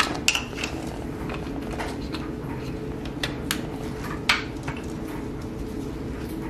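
Steady hum of a clothes dryer running, with several sharp plastic clicks and taps as a MAF sensor wiring connector is handled and plugged back in; the loudest click comes about four seconds in.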